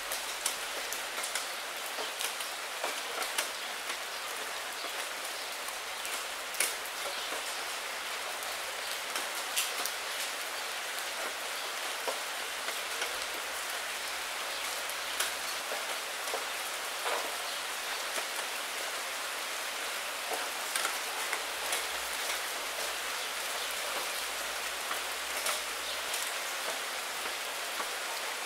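Steady rain falling on a glass window pane: an even hiss, with frequent sharp taps of single drops striking at irregular moments.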